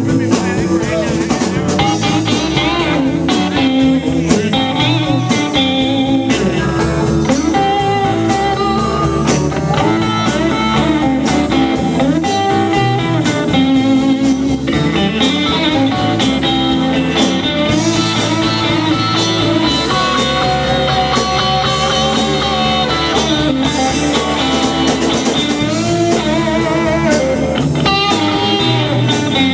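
Live blues-rock band playing a loud, steady jam, led by electric guitar.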